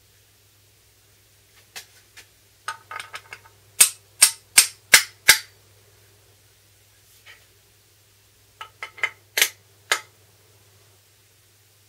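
A small hammer taps the iron and chip-breaker (osae-gane) of a Japanese kanna plane to set them. There are a few light taps, then five sharp strikes at about two and a half a second, then after a pause more light taps and two sharp strikes near the end.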